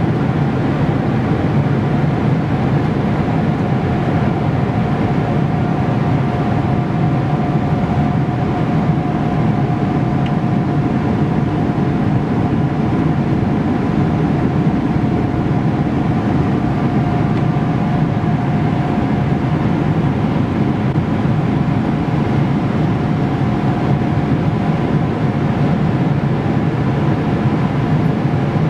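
Steady cabin noise inside a Boeing 777-300ER airliner in flight: an even, unbroken roar with a faint steady hum over it.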